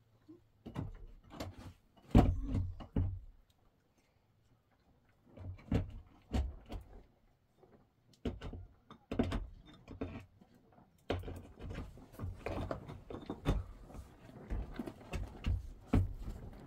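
Irregular knocks and thuds in short clusters, the loudest about two seconds in, with a quiet gap of a second or two before they start up again and grow busier toward the end.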